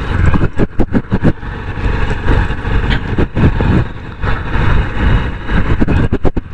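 Honda SP125 motorcycle's single-cylinder engine running while riding, under frequent irregular bursts of wind buffeting on the microphone.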